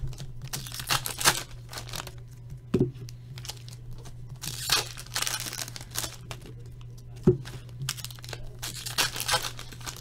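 Trading-card pack wrappers being torn open and crinkled, in several rustling bursts, with two sharp knocks, over a steady low hum.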